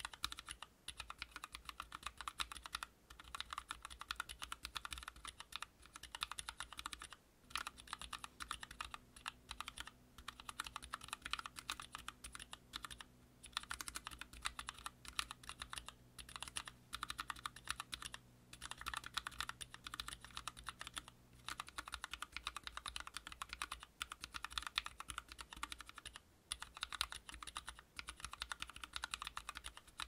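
Fast typing on a mechanical keyboard with Cap yellow linear switches under PBT keycaps: a dense run of key clicks with short pauses. The sound alternates between the factory-lubed stock switches and the same switches hand-lubed with Krytox 205g0 and fitted with switch films.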